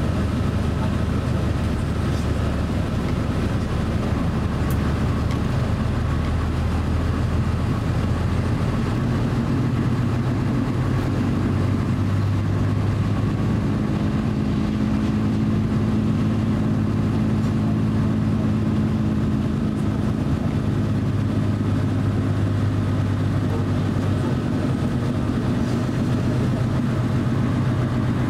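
Twin Pratt & Whitney PW127 turboprop engines and propellers of an ATR 42-600 heard inside the cabin during taxi: a steady low drone whose hum shifts in pitch a few times.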